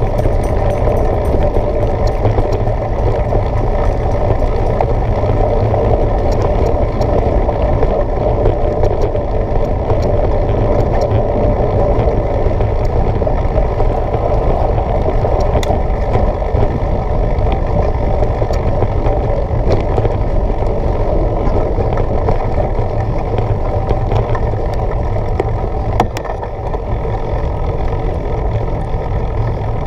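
Mountain bike rolling fast along a bumpy dirt track: a steady rumble of tyres and wind on the camera microphone, with scattered sharp clicks and rattles from the bike over the bumps and one louder knock near the end.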